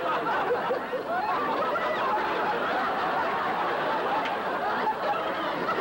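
Studio audience laughing, many voices overlapping in a sustained laugh.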